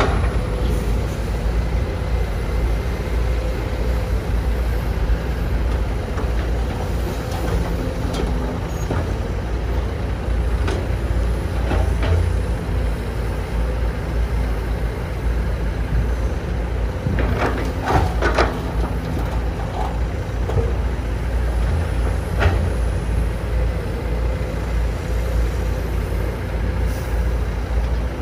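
Diesel engines of a CASE CX210B hydraulic excavator and a Scania dump truck running steadily with a low rumble. A few short clanks and knocks come through, clustered about two-thirds of the way in.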